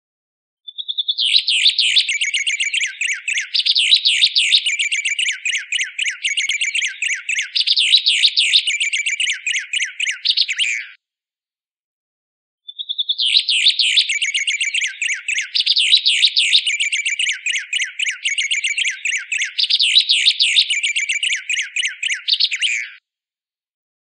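Song of the cage bird called White Singer: a rapid, high chattering song opening with a short steady whistle, in two bouts of about ten seconds each with a short silent gap between them. The second bout is the same recorded bout played again.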